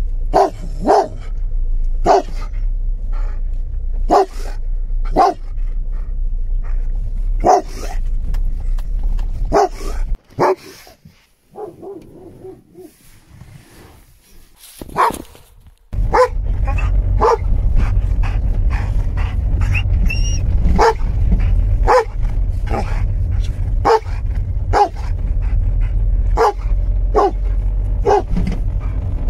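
Dog barking loudly and repeatedly, about one bark a second, over a steady low rumble. The barking falls away to a few faint barks for several seconds in the middle, then starts up loudly again.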